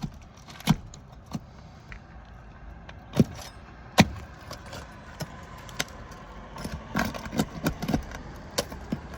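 Hand tool knocking and prying at asphalt shingles to pull roofing nails: a series of sharp taps and clicks, the loudest about four seconds in and a quicker run of them near the end, as a nail is worked loose and pulls straight through the shingle.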